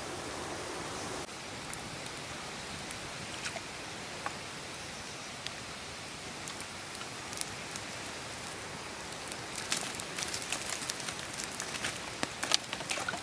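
Wood fire embers crackling under a steady hiss, with sharp pops that grow much more frequent about ten seconds in.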